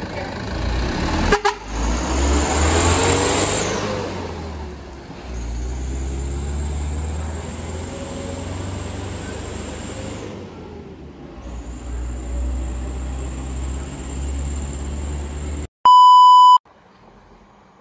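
Mitsubishi light truck's diesel engine pulling away, with a sharp click and a loud hiss about one and a half seconds in, then running steadily as it drives off. Near the end a loud steady test-tone beep sounds for about a second.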